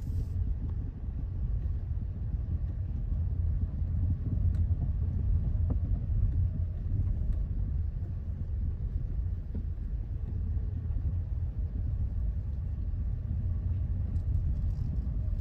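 Hyundai Elantra CN7 driving over rough road: a steady low road-and-tyre rumble, with a couple of faint knocks about a third of the way in.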